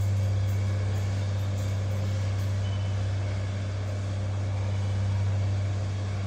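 A steady low hum, unbroken for the whole stretch.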